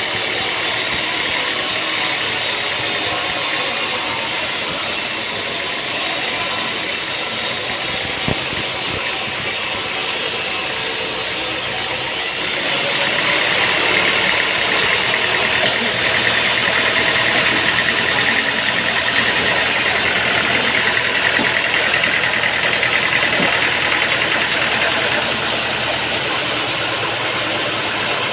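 Sawmill machinery running steadily, growing louder and harsher from about halfway through, then easing off again near the end.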